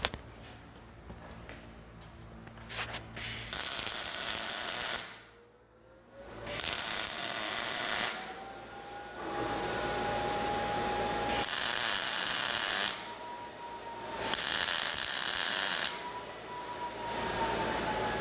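MIG welder's arc laying heavy tack welds on a steel square-tube table frame: four bursts of arc noise, each about a second and a half long, with short pauses between them, the first starting a few seconds in.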